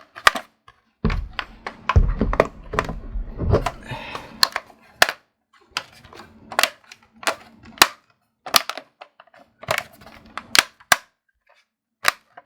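Plastic bottom cover of an Alienware Alpha being pressed back onto the case, its clips snapping into place in a string of sharp clicks. There is rubbing and handling of the plastic between about one and four seconds in.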